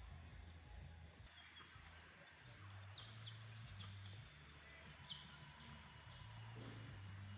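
Near silence, with a few faint, short bird chirps scattered through it over a low steady hum.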